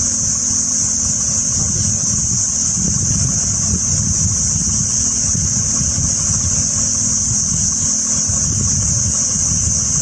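Steady, high-pitched drone of cicadas in the forest, over a low, uneven rumble.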